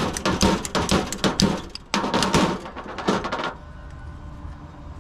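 Clattering of hand tools and PVC pipe pieces being handled and set down on a metal truck toolbox lid: a dense run of knocks and rattles that stops about three and a half seconds in, leaving a faint low hum.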